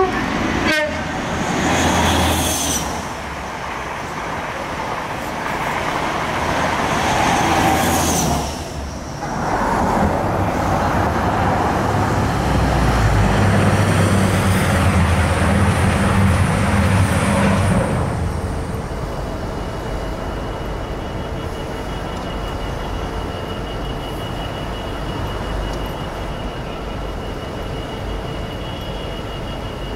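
Diesel trains passing on a main line in a run of short shots. First comes the rumble of passenger trains, with a steady engine hum louder in the middle. Then, after about eighteen seconds, the quieter, steadier running of a Freightliner Class 66 diesel locomotive hauling loaded cement tank wagons.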